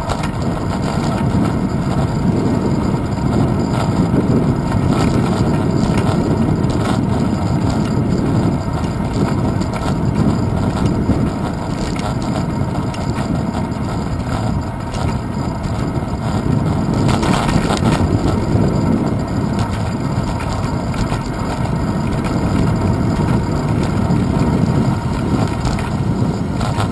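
Steady low rumble of wind and road vibration on a handlebar-mounted GoPro Hero 2 riding on a moving bicycle, rising and falling a little.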